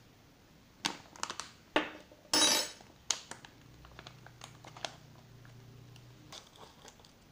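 Plastic pouch of coconut flour crinkling as it is handled and set aside, with light clicks and knocks; the loudest crinkle comes about two and a half seconds in.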